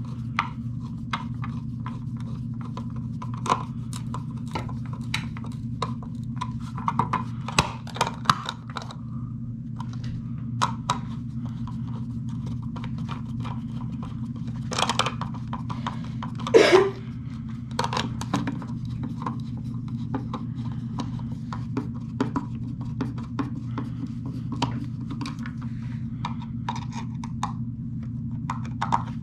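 Hand screwdriver turning the screws of a retrofit electrical box holding a duplex outlet, making many small irregular metallic clicks and scrapes over a steady low hum. A little over halfway through, one brief, loud sound falls sharply in pitch.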